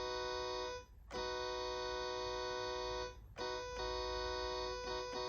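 Electronic keyboard playing a held three-note chord, E flat, F sharp and B, to imitate a Nathan K3LA five-chime train horn. It sounds in long horn-like blasts: one ends about a second in, a second lasts about two seconds, and a third starts near the middle and is broken into short stabs near the end.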